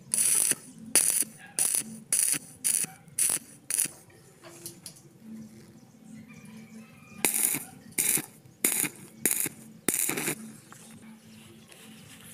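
Short, sharp bursts of noise from work on steel: seven quick ones in the first few seconds, then a pause, then five more about halfway through.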